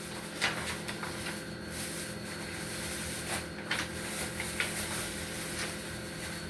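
Steady room hum with a few soft clicks and rustles scattered through it, like light handling of kitchen items.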